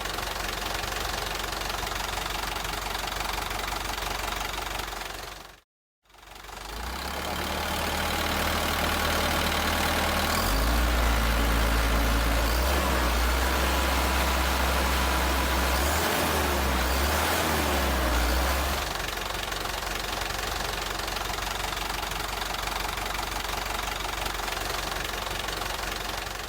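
Diesel truck engine idling with a clattering knock, cutting out briefly about six seconds in, then revving up and running louder with the pitch rising and wavering for about twelve seconds before dropping back to idle.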